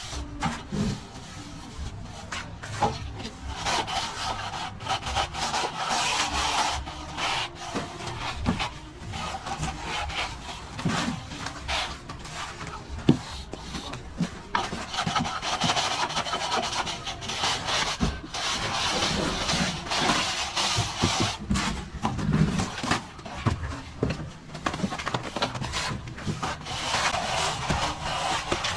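Plastering trowel scraping over plaster in repeated strokes, with scattered sharp knocks.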